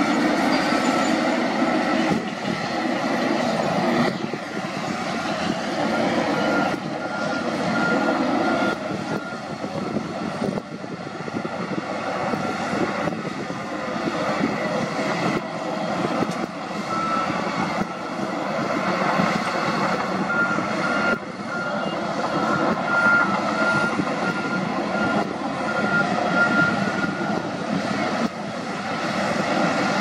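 Diesel engines of a crawler bulldozer and a wheel loader working rock, running steadily with scattered knocks. A reversing alarm beeps about three times a second in two spells, about seven seconds in and again from about twenty seconds.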